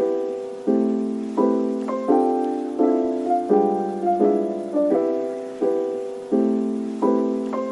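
Background music: piano-style keyboard chords struck about every 0.7 seconds, each fading before the next.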